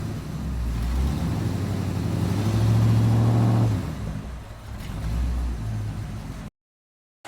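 A motor running with a steady low hum that swells for a second or so in the middle and eases off again, then cuts off abruptly near the end.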